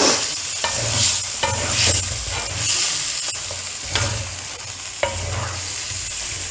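Spatula stirring masala-coated chicken pieces in a kadai (cheenachatti), scraping against the pan in strokes roughly once a second over a steady sizzle of frying.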